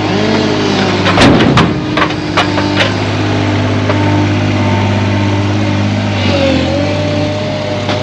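An engine running steadily at a constant speed, with several sharp knocks between about one and three seconds in.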